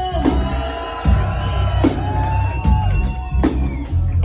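Live reggae band playing a rhythm-section groove: a steady bass line and regular drum hits under several held notes, with the crowd whooping and cheering.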